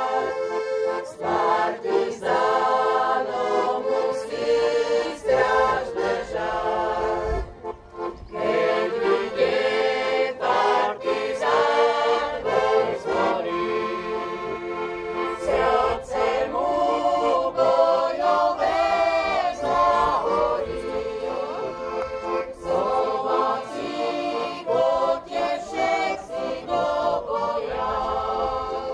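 A choir singing a slow song in sustained, held phrases.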